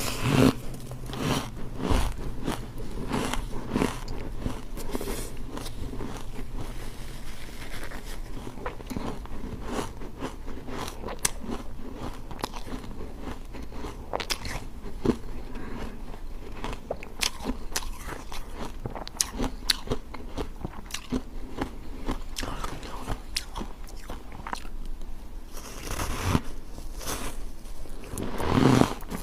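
Refrozen block ice chunks, dusted with matcha powder, being bitten and chewed: a continuous run of sharp crunches and cracks. The crunching is busiest in the first couple of seconds and again near the end.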